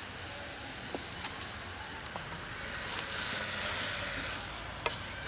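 Wooden spatula stirring boiled broccoli, cauliflower and carrot in an aluminium saucepan: a few light knocks, then soft scraping about three seconds in, over a steady background hiss.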